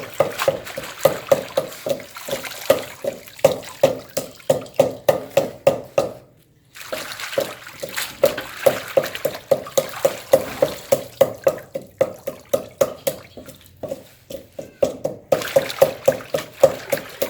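Hands washing food in a bowl of water: rhythmic splashing strokes, about two to three a second, with a short pause about six seconds in.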